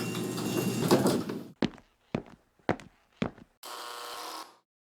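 A mechanical sliding security door running open with a steady hum, stopping about a second and a half in. Four footsteps follow, about half a second apart, then a brief buzz.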